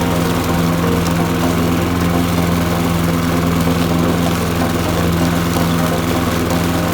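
Toro lawn mower running steadily at a constant pitch.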